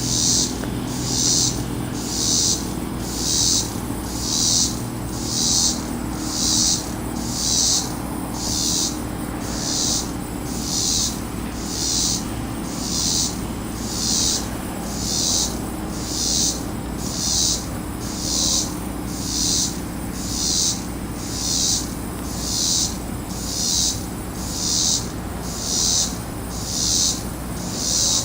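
Insects calling in a steady high-pitched chorus that pulses about once a second. A low hum fades away in the first few seconds.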